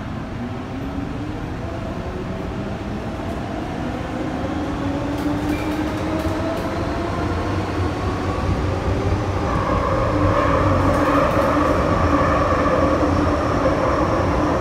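Inside a passenger car of an MTR Metro-Cammell electric train as it accelerates: several whining tones from the traction motors climb steadily in pitch. The rumble of the wheels and running gear grows louder, strongest from about ten seconds in.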